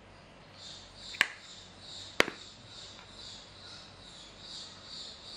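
Two sharp clicks about a second apart from the plastic case of a Viva compact powder being handled, over a faint high hiss that pulses about twice a second.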